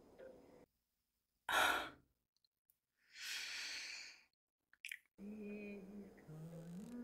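A woman sighs loudly once, then breathes out again at length about a second later, with dead silence around both. About five seconds in a low, wavering hum starts.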